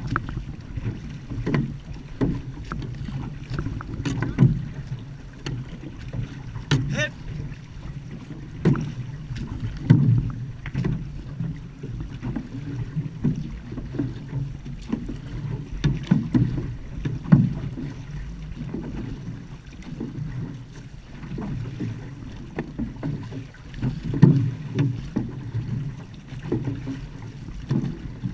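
An outrigger canoe (va'a) under way: paddles dipping and pulling through the water, with repeated uneven splashes and wash against the hull. Wind buffets the microphone as a low rumble underneath.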